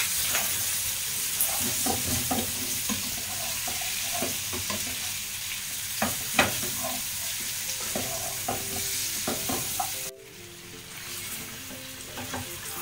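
Chicken pieces sizzling in hot oil in a frying pan while a wooden spatula stirs and turns them, knocking and scraping against the pan. The sizzle drops off suddenly about ten seconds in.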